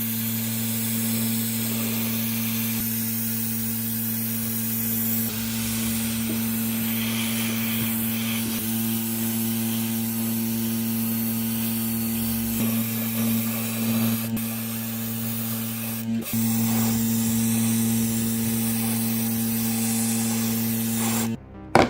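Steady hiss of a compressed-air spray tool over a constant motor hum, cutting off abruptly near the end.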